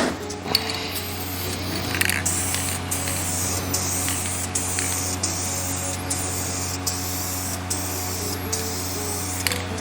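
Clear coat being sprayed onto a wheel, a steady hiss broken by short pauses every second or so as the spray is stopped and restarted. A steady low hum runs underneath.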